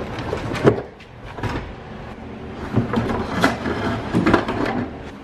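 Clunks, knocks and rattles of a Tesla Model X rear seat being wrestled out of the car, its metal frame and brackets banging against the floor and trim. One hard clunk comes about a second in, then a run of knocks about three to four and a half seconds in.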